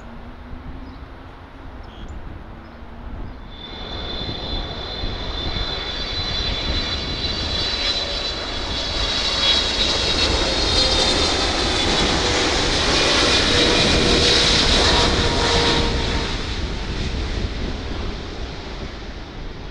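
Boeing 777 freighter's twin GE90 turbofans on final approach. A steady high-pitched whine over a broad rushing noise cuts in about four seconds in, grows loud as the jet passes close, and fades as it touches down. Before that comes the quieter rumble of a Boeing 747 on the runway after landing.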